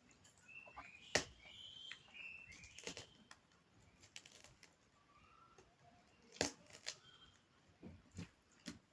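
Close-miked eating sounds: scattered sharp wet clicks and smacks from chewing and handling the rice and curries, the loudest about a second in and about six and a half seconds in. Faint short chirps, like birdsong, come in the background during the first few seconds.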